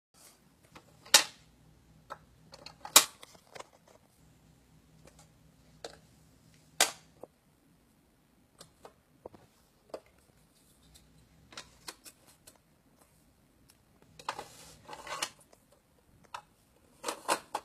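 Irregular plastic clacks and knocks from a puzzle dog toy as a corgi works its pieces, with three sharp loud clacks in the first seven seconds. Two short rattling, scuffling stretches come later on.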